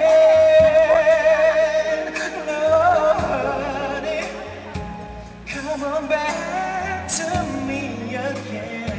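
Male pop singer singing live into a handheld microphone over loud backing music, holding one long note for about the first three seconds before the melody moves on.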